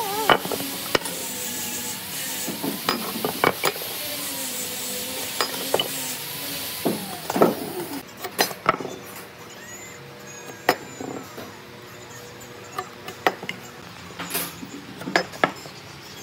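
Scattered short knocks and clicks, typical of wood and tools being handled. They sit over a steady hiss that cuts off abruptly about halfway through.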